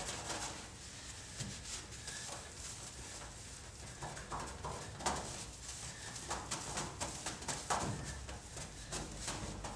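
Cloth rubbed hard over a painted truck body panel, scrubbing polishing compound into the double-sided tape residue left where a body side molding came off: a run of short, irregular rubbing strokes, a few louder than the rest.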